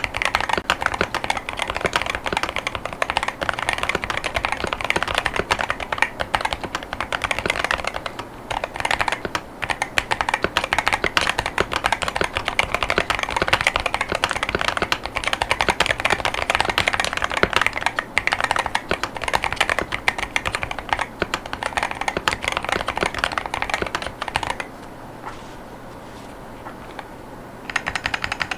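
Continuous typing on a Wooting 80HE keyboard with Lekker L60 linear Hall-effect switches, PBT OEM-profile keycaps and a transparent plastic case: a dense, steady clatter of keystrokes. Near the end the typing stops for about three seconds, then starts again.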